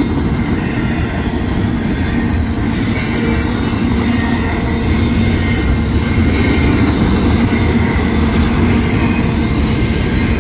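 Intermodal freight train cars rolling past a grade crossing: a loud, steady rumble of steel wheels on rail.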